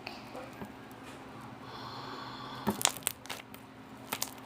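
Violet butter slime being mixed, sticky squishing with a cluster of sharp crackles and pops about two-thirds of the way in.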